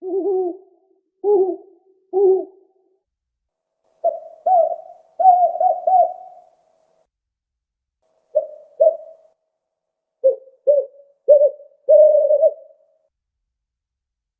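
Owl hooting: short low hoots in clusters with silent gaps between. There are three at the start, a quick run of about five a few seconds in, two more past the middle, and a run of four ending in a slightly longer hoot near the end.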